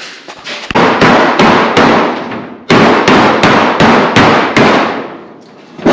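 Hammer blows beating out a metal race-car door panel to straighten it, about three strikes a second. There are two runs of blows, the second longer, each ringing briefly off the sheet metal.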